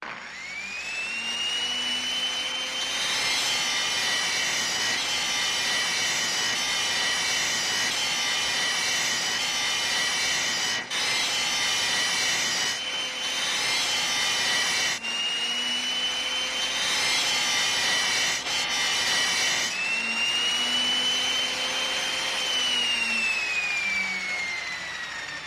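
Electric router motor starting up with a rising whine and running at a high, steady pitch, with stretches of rougher hiss over it. It starts up again about fifteen seconds in, and near the end the whine falls steadily as the motor winds down.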